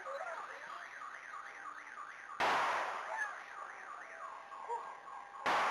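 Ceremonial cannon firing a gun salute: two loud shots about three seconds apart, each dying away in a long echo. Between the shots a warbling alarm tone rises and falls about three times a second.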